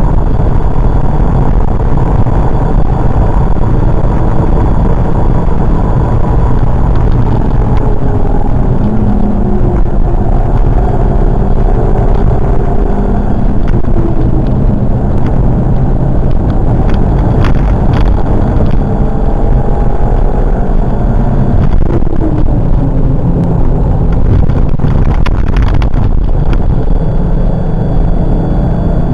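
Volkswagen Golf Mk5 1.4 TSI turbocharged four-cylinder, fitted with a cold air intake, driven hard and heard loud from inside the cabin over heavy road and wind noise. The engine note climbs and drops with throttle and gear changes, and a few sharp clicks come through in the second half.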